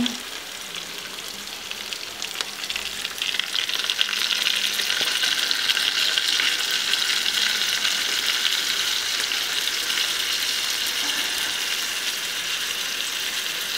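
Beef shank and chopped onions sizzling as they fry in a pot, a steady hiss that swells about three seconds in and holds there, while lime juice is squeezed into the hot pot.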